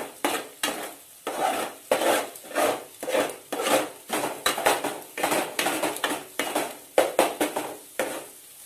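Spatula scraping and knocking against a metal pan, about three quick strokes a second, as scrambled egg is stirred and chopped into small pieces.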